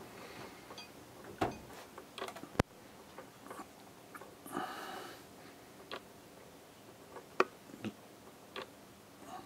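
Quiet room with scattered faint clicks and light knocks, one sharper click about two and a half seconds in, and a brief soft hiss near the middle.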